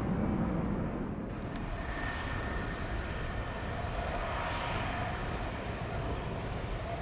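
Jet airliner engines running steadily, with a thin high turbine whine coming in about a second in over the wash of engine noise.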